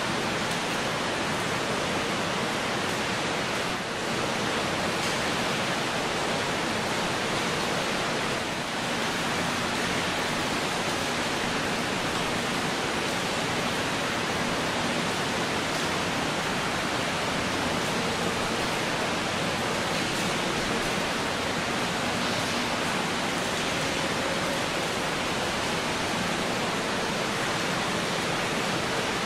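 A steady, even hiss of noise that holds at one level throughout.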